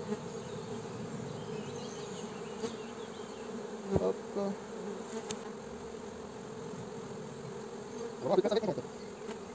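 Steady buzzing of a honeybee colony (Buckfast bees) in an opened hive. A single wooden knock about four seconds in and a short clatter near the end, as wooden frames are set back into the hive body.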